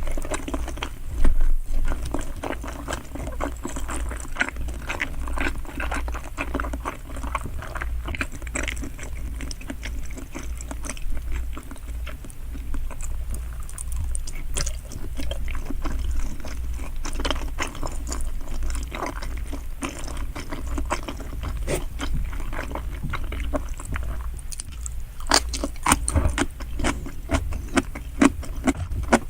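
Close-miked chewing of salmon sushi: a dense run of wet mouth sounds, small clicks and smacks, over a low steady hum.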